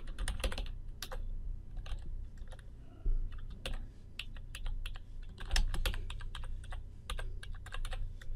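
Typing on a computer keyboard: irregular runs of sharp key clicks with brief pauses between words, over a steady low hum.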